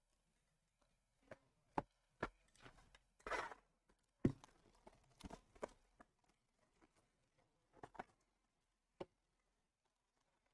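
Sparse light taps and knocks, with a brief rustle about three seconds in, from a sealed cardboard trading card box being picked up and handled and its plastic shrink wrap being pulled.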